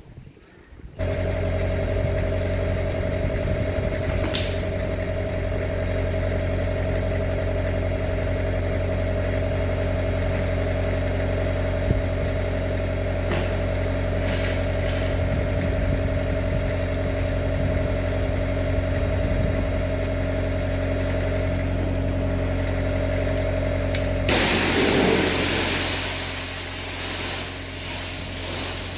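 Power washer's motor starting up about a second in and running at a steady hum. About three-quarters of the way through, the high-pressure water jet comes on with a loud hiss over the hum.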